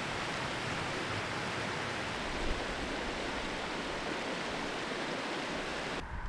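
Steady rush of running water. It cuts off abruptly near the end, giving way to a low rumble.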